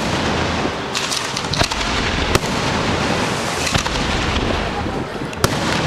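Aerial firework shells bursting: several sharp bangs over a steady crackle.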